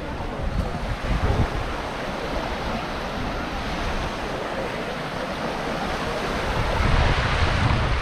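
Sea waves washing onto a sandy beach, with wind buffeting the microphone in low gusts about a second in and again, louder, near the end.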